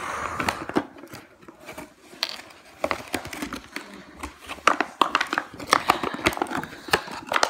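Hands handling plastic toy packaging: scattered clicks, taps and crinkling.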